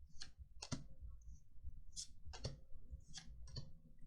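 Magic: The Gathering trading cards being handled, flicked through and set down on a table: a scattered series of short, faint clicks and papery rustles.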